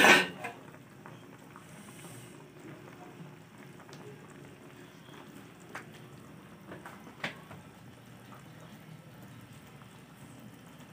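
A metal pot clanks loudly at the start. Then a pot of fish broth simmers on a gas burner, giving a soft, steady bubbling with a few faint ticks.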